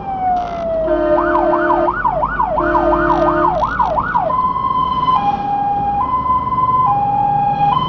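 Fire engine's electronic siren heard from on board: a falling wail, then a fast yelp sweeping up about three times a second with a lower steady tone sounding twice, switching about four seconds in to a two-tone hi-lo, each note held about a second. The truck's engine and road noise run underneath.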